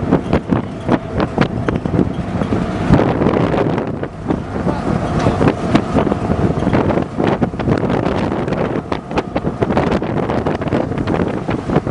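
Wind buffeting the microphone over the steady running of a ship's engines as it manoeuvres, with voices in the background.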